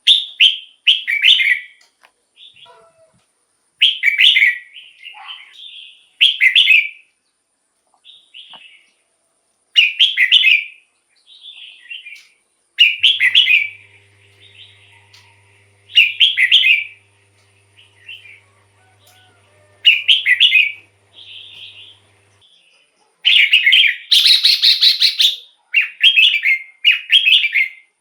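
Red-whiskered bulbul singing: short, loud warbled phrases repeated every two to three seconds, with softer notes between them, and a longer, louder run of phrases near the end.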